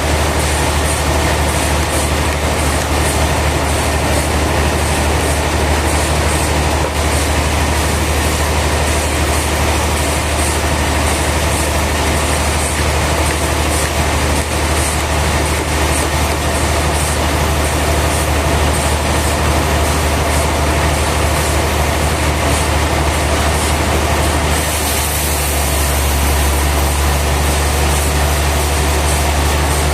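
Sawmill machinery running steadily: a strong low hum under a dense, even mechanical rattle. About 25 seconds in, the sound shifts and the low hum grows stronger.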